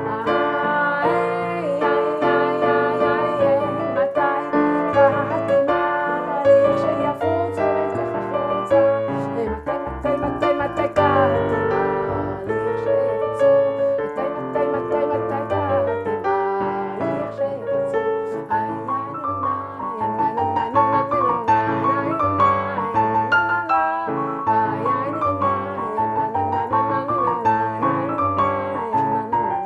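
Piano music: a keyboard playing a melody over chords, one note after another at a steady pace.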